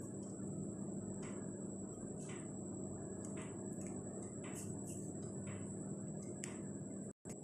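A metal spoon spreading cream cheese over thin rolled dough: soft scraping strokes about once a second, over a faint steady hum.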